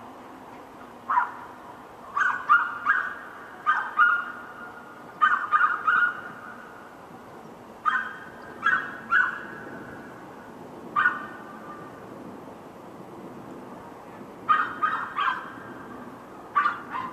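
Dog barking in short groups of one to four sharp barks, with pauses of one to three seconds between groups.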